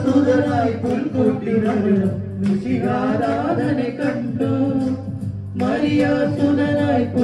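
Men singing a Christmas song together into handheld microphones, amplified through a speaker, with held sung notes over a steady low accompaniment.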